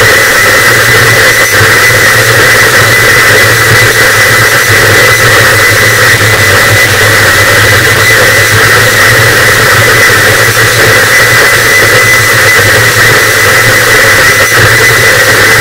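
Harsh noise wall: a loud, unchanging wall of distorted static with a steady high tone and a low drone running through it.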